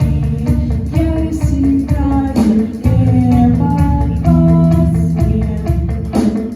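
A song with guitar and bass accompaniment and a singing voice holding long melodic notes.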